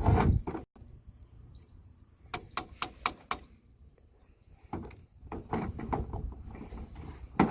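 Knocks and taps on a salvaged truck air-conditioning compressor as the dust is knocked off it: a quick run of about six sharp clicks a couple of seconds in, then a rougher stretch of scraping and clicking in the second half. A faint steady insect chirr runs underneath.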